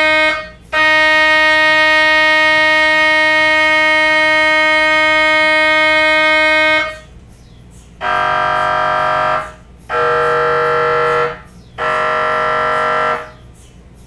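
MRI scanner's gradient coils sounding a loud, steady buzzing tone that breaks off briefly about half a second in and stops about seven seconds in. It is followed by three shorter, deeper buzzes of about a second and a half each, evenly spaced.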